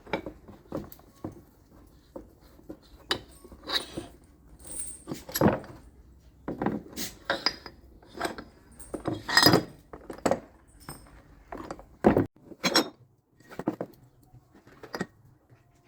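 Metal tools and parts being handled, clinking and knocking at irregular intervals, a few strikes ringing briefly.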